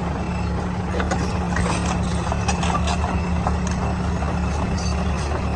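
A heavy diesel engine running steadily at low revs, with scattered metallic clicks and knocks over it.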